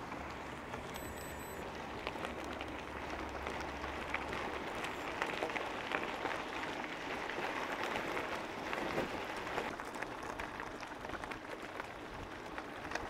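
E-bike riding noise: tyres rolling over the road surface with a steady crackling hiss of small ticks. A low hum fades out about four seconds in.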